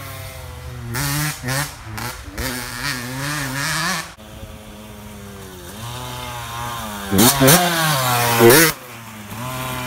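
2004 Honda CR85's two-stroke engine revving up and falling back again and again as the dirt bike rides the trail. It is loudest as it passes close, about seven to eight and a half seconds in.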